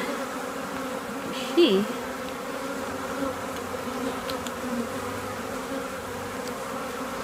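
Steady buzzing hum of many honeybees flying around an open hive and bee package. About one and a half seconds in, a brief vocal sound.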